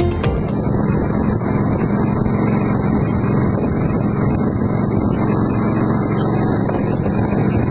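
Small boat's motor running steadily with a low, even hum.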